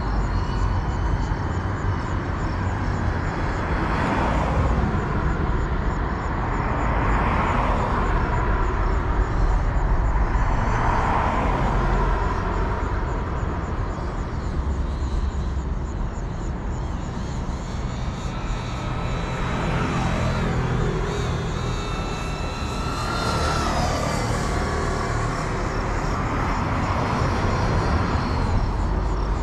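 The brushless motors of a GEPRC CineLog 35 FPV cinewhoop whine while it flies. The pitch rises and falls with the throttle, and the sound swells and fades several times as the drone moves about. Under it runs a steady low rumble.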